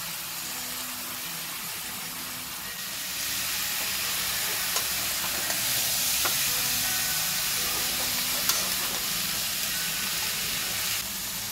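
Mixed vegetables and masala paste sizzling in hot oil in a kadhai as they are stirred with a metal spatula. The hiss grows louder about three seconds in.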